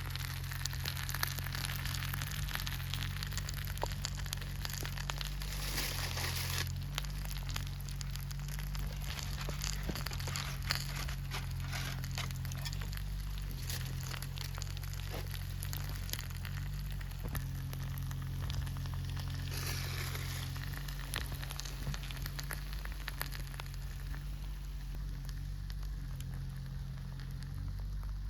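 Thick-cut bacon and eggs sizzling and spitting in a thick black iron frying pan over a burning Swedish torch log, with small crackles and pops throughout.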